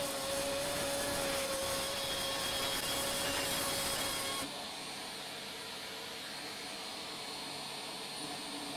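Small rotary-tool motor of a hand-held micro router running at speed with a steady high whine, the bit cutting into chipboard with a rough hissing rasp. About four and a half seconds in the cutting hiss drops away and the sound gets quieter, leaving mostly the motor's whine.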